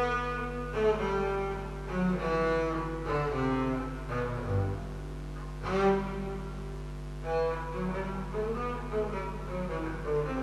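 Double bass played with the bow: a slow line of separate bowed notes, each one starting with a distinct attack, over a steady low drone.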